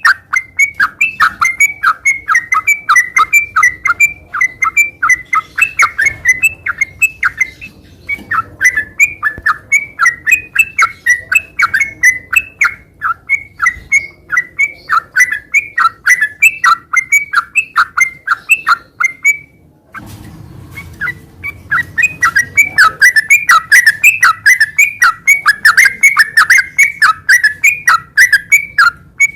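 Yellow-vented bulbul (trucukan) singing a long, rapid run of short, loud whistled notes, several a second, with one brief pause about two-thirds of the way through.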